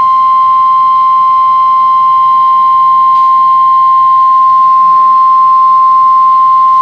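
NOAA Weather Radio warning alarm tone: a single loud, steady tone of about 1050 Hz that switches on abruptly and holds without a break. It signals that a National Weather Service warning is about to be broadcast.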